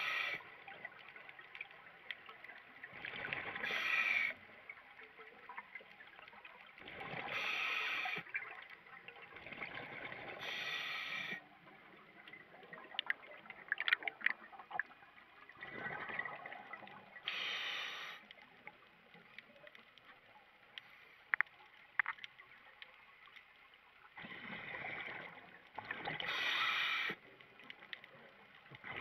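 Scuba diver breathing underwater through a regulator: a rush of air and exhaled bubbles every three to four seconds, with scattered faint clicks between breaths.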